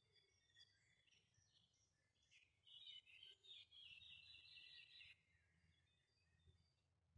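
Faint songbirds chirping, with a busier, louder run of twittering in the middle.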